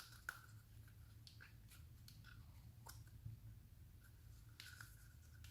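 Near silence: faint scattered clicks and light handling noise of plastic toy parts and Play-Doh being worked by hand, over a low steady hum.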